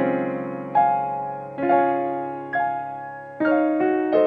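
Slow background piano music: notes and chords struck about once a second, each left to ring and fade before the next.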